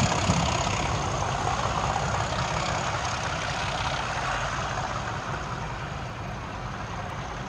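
Class 37 diesel locomotive's English Electric V12 engine working hard under power, its rumble fading steadily as the train pulls away.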